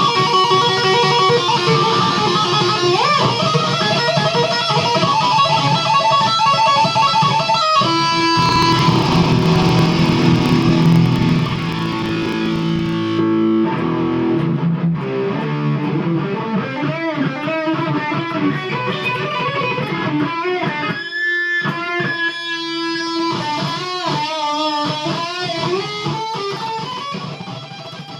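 Electric guitar playing. In the first half the notes are held at steady pitches; in the second half they bend and waver. It fades down near the end.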